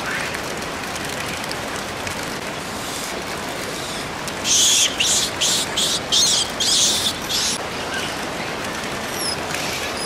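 Steady rushing of flowing water from the hot-spring pool. About halfway through comes a run of short, loud hissing bursts, and near the end a small bird chirps faintly a few times, each chirp a quick falling note.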